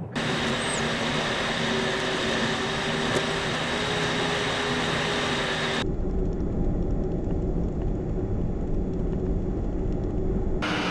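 Steady road and engine noise from a car on the move. It changes abruptly about six seconds in, the high end dropping away and the low rumble getting stronger.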